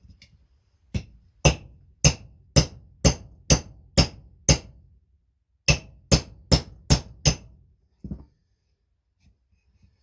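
Hammer blows driving the throttle-trigger pin out of a McCulloch Mac 1010 chainsaw handle: a run of eight sharp strikes at about two a second, a short pause, then five quicker strikes and one lighter knock.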